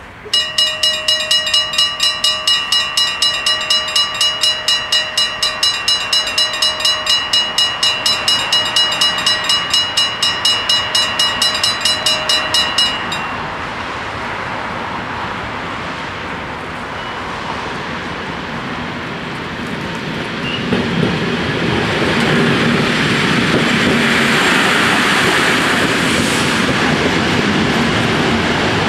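The two electric bells of a Dutch half-barrier level crossing ring in a fast, even rhythm and stop about 13 seconds in, once the barriers are down. From about 20 seconds in, an NS Mat '64 (Plan V) electric multiple unit approaches and passes, its wheels and motors rising to a steady loud rumble.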